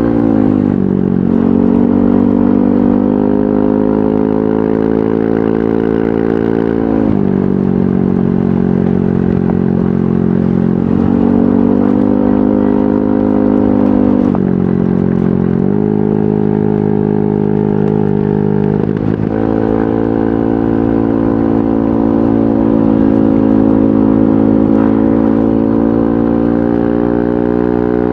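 Yamaha NMAX 155 scooter's single-cylinder engine running through an aftermarket VMAX Onyx muffler while riding. The exhaust note climbs slowly and falls off sharply several times as the throttle is opened and eased, around seven seconds in, again near the middle, and at the end.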